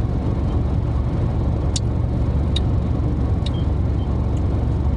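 Steady low rumble of a car's cabin with the engine idling, with a few faint, sharp clicks spaced about a second apart.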